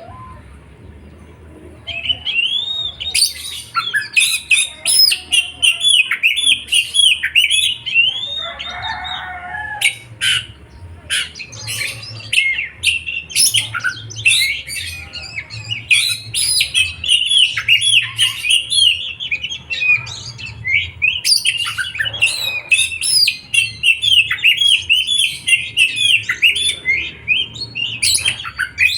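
A songbird singing a fast, unbroken stream of quick chirps and twitters, starting about two seconds in: bird song used as a lure to set pet birds singing.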